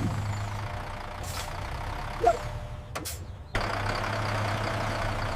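Bus engine sound effect idling steadily with a low hum; it drops out briefly about three seconds in, then resumes.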